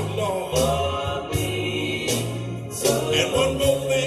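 Gospel song played live: a sung vocal line over organ and bass, with a steady drum beat.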